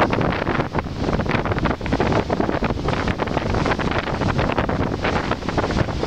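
Storm wind buffeting the microphone in heavy gusts, over the rush of large waves breaking and washing across the shore.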